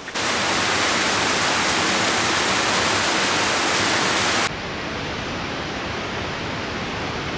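Rushing water, a steady, loud hiss. It drops to a lower level about halfway through.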